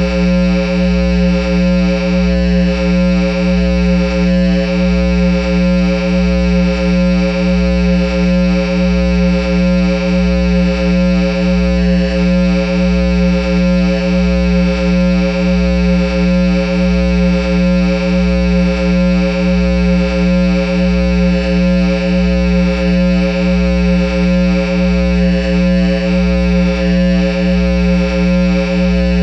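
Loud steady electrical hum and buzz from a Line 6 guitar amplifier head playing through a Peavey speaker cabinet with nothing being played, swelling slightly in an even slow pulse about once a second.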